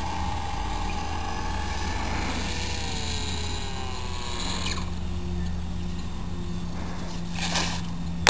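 Geared brushless electric motor and propeller of a foam RC plane whining and falling steadily in pitch as the throttle is eased back, cutting off about halfway through. A short scuffing noise near the end as the plane touches down on the grass.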